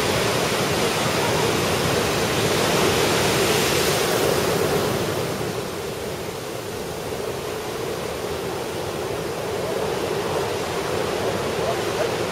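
Ocean surf from a typhoon swell breaking and washing up the beach: a steady hiss that swells over the first few seconds, eases off about six seconds in, then builds again.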